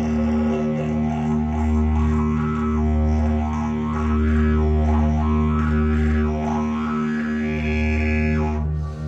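Didgeridoo drone: one steady low note pulsing in rhythm, with overtones sweeping up and down as the mouth shapes the sound. The drone breaks briefly near the end.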